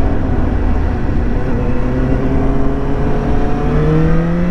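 Suzuki GSX-S750's inline-four engine pulling at low road speed, over a steady low rumble of wind and road noise; in the last second or so its pitch rises steadily as the bike accelerates.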